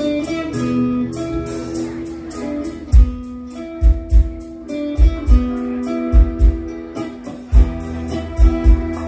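Live stage band playing an instrumental introduction: a held, steady melody line over a fast, even ticking beat, with deep drum hits joining about three seconds in.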